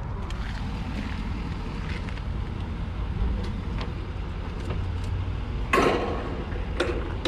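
Wind buffeting the microphone with a steady low rumble. About six seconds in, a short loud clatter comes as the Kenworth T800's tilt hood is pulled forward by its emblem to open it.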